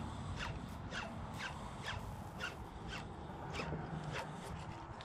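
Spinning reel being cranked on a lure retrieve, a short rasp with each turn of the handle, about two a second.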